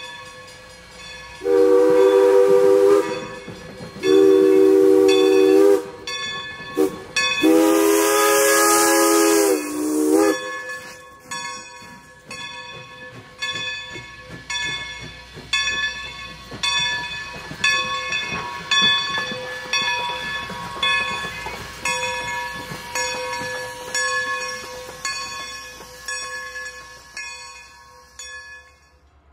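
Baldwin 2-8-0 steam locomotive's chime whistle blowing the grade-crossing signal, long, long, short, long, with steam hissing on the last blast. Then the locomotive bell rings steadily, about once a second, fading toward the end.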